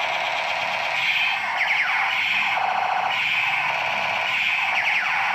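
Battery-powered toy blaster pistol playing its electronic sound effect: a two-tone warble that swaps between a high and a lower beep about every half second, like an alarm, with a falling laser zap twice.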